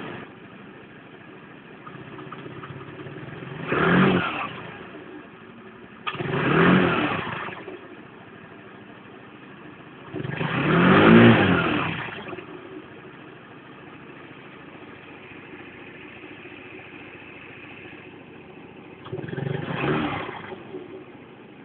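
Chinese scooter engine idling and revved four times, each rise lasting one to two seconds before dropping back to idle. The owner's complaint about this engine is that it won't rev out at full throttle and makes a high-pitched tocking at low revs and when accelerating from low revs.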